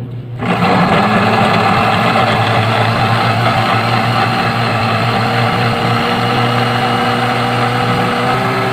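Electric blender starting up about half a second in and running steadily at speed, puréeing boiled carrots and celery with their cooking water into soup.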